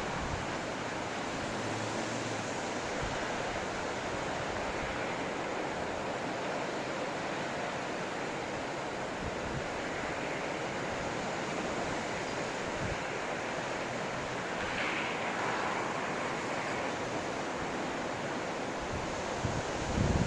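Blizzard wind blowing steadily, a dense even rush of noise, with occasional low buffeting thumps of wind on the microphone, more of them near the end.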